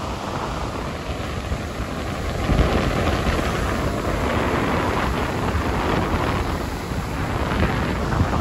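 Rough sea surf breaking and washing onto a rocky shore, a continuous rushing roar that swells about two and a half seconds in. Strong wind buffets the microphone, adding a low rumble.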